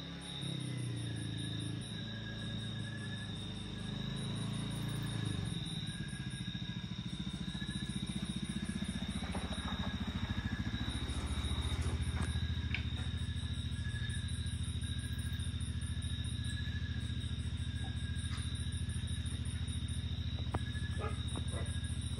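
Night chorus of insects: a steady high trill and a pulsing, repeating chirp, over the low rumble of a vehicle engine that grows louder about six seconds in and then runs steadily.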